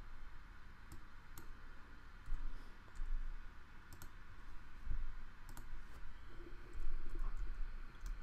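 Irregular clicks of a computer mouse and keyboard keys, roughly one a second, over a low steady hum.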